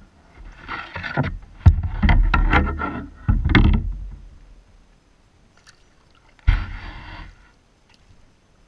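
Knocks and scraping on a kayak's hull: a cluster of sharp knocks with rubbing in the first four seconds, then one more sharp knock about six and a half seconds in.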